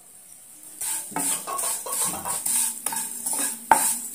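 Ragi vermicelli being stirred and fried in ghee in a nonstick kadai with a spatula: repeated scraping strokes, about two a second, starting about a second in, with one sharper knock of the spatula against the pan near the end.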